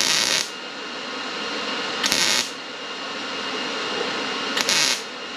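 MIG welder laying three short tack welds on steel body sheet metal, each a sizzling burst of about half a second, roughly two seconds apart.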